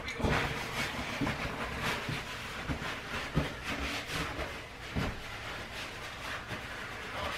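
Steady hiss with irregular light knocks and rustles, as of a cloth and small objects being handled.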